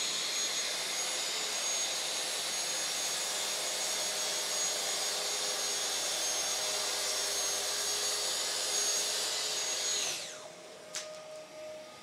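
Festool TSC 55 KEB cordless track saw running as it is pushed along its guide rail, with a dust extractor running through the hose: a loud steady machine noise with a high whine. About ten seconds in the saw's noise drops away quickly under its electronic brake, leaving the steadier hum of the dust extractor and a click.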